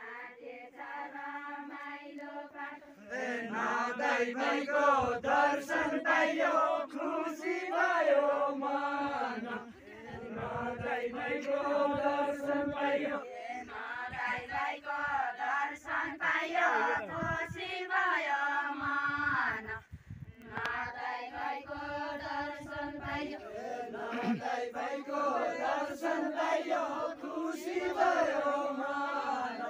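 A group of villagers singing a Deuda folk song together, unaccompanied, in long chanted lines with short breaks about ten and twenty seconds in.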